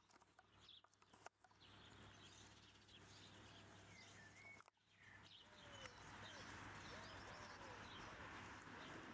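Faint outdoor background noise with a few distant bird chirps, near silence overall; the hiss gets a little louder about halfway through.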